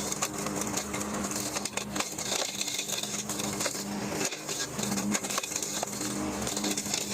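Lawnmower engine running steadily under rapid, irregular clicking and crackling, typical of tree limbs being chopped by the mower's blade.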